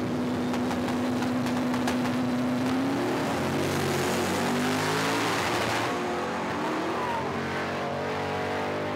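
A drag-racing vehicle's engine held at a steady high rev for about three seconds, with a few sharp cracks. It then launches and accelerates, its pitch climbing and shifting as it pulls away.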